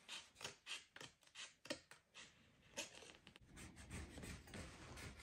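Faint short scrapes of a poster-board template being handled, then, from about three seconds in, a marker scratching steadily as it traces the template's outline onto foam deck matting.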